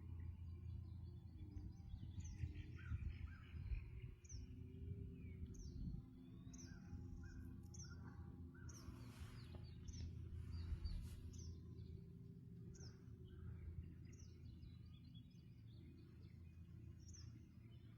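A bird giving short, high, downward chirps, repeated about once a second, over a faint low background rumble.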